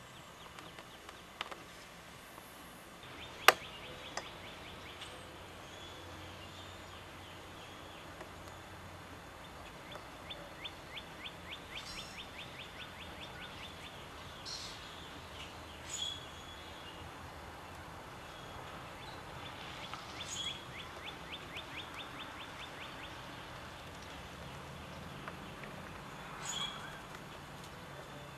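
Background songbirds: a small bird sings a dry trill of rapid even ticks, about eight a second, twice, with a few short high calls between. A single sharp click sounds about three and a half seconds in.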